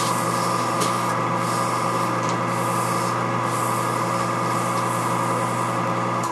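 Boley 8 mm watchmaker's lathe running at steady speed, its motor giving a constant hum and a steady whine, while an abrasive pad rubs the spinning SM45C steel part with a wavering hiss.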